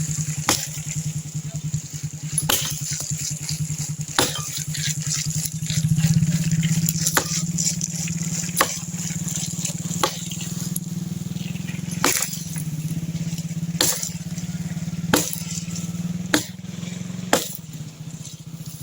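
Wood being chopped: about a dozen sharp blade strokes, one every one to two seconds, over a steady low hum.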